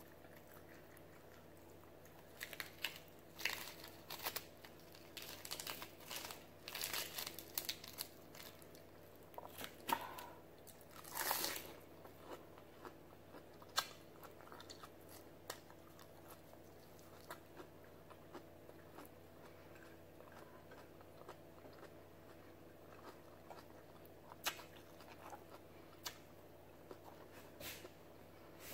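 Close-up mouth sounds of someone biting and chewing crisp raw lettuce leaves. There are rapid, dense crunches for roughly the first ten seconds, then only occasional small crunches and mouth clicks.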